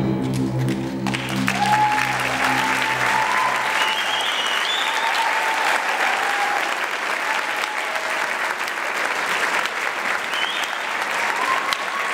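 A school orchestra's final chord dies away over the first few seconds as the audience breaks into applause about a second in, with cheers over the clapping.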